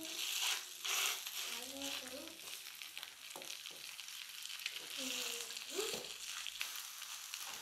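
Beef slices sizzling in a nonstick frying pan in their own rendered fat, no oil added, as they are turned over with a plastic slotted spatula, with scraping and a few light taps of the spatula on the pan.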